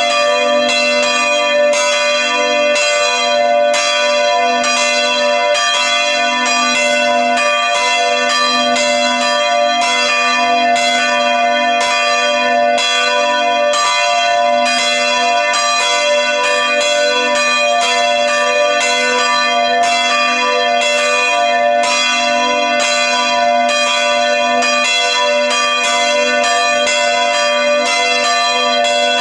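Church bells ringing continuously: several bells of different pitch struck in quick, overlapping succession, with no pause.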